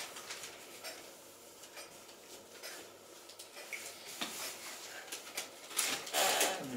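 Paper brochure rustling and crinkling as a baby grabs and turns its pages, in short irregular bursts. A short baby vocalisation about six seconds in, falling in pitch.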